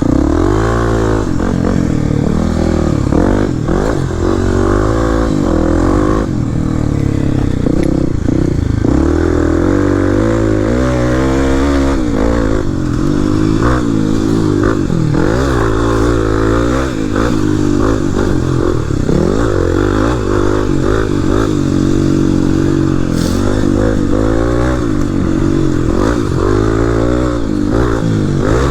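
Single-cylinder dual-sport dirt bike engine, revving up and falling back over and over as the rider accelerates and backs off around a small dirt track.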